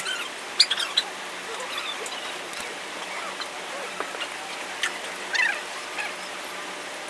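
Milk squirting from a cow's teats into a steel pail during hand milking, with a few short bird chirps.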